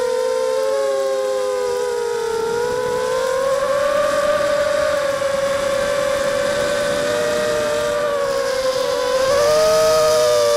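Brushless motors and propellers of a 260-size FPV racing quadcopter whining, heard through its onboard camera. The pitch drifts up and down with the throttle and rises about nine seconds in, with more wind hiss.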